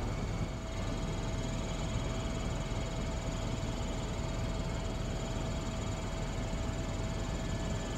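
Helicopter in flight, heard from inside the cabin: a steady drone from the engine and rotor with a constant whine running through it.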